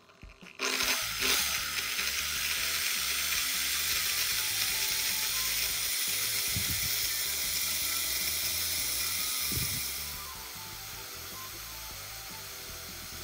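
Electric drill running while a flat file is held against a metal rod spinning in its chuck: a steady, hissing, rasping grind as the file shapes the rod's tip to a point. It starts under a second in and gets quieter about ten seconds in.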